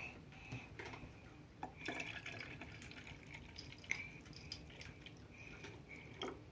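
Milk poured from a plastic jug into a Philips coffee machine's plastic milk container, a thin trickling fill with small plastic clicks and knocks from handling the jug and container.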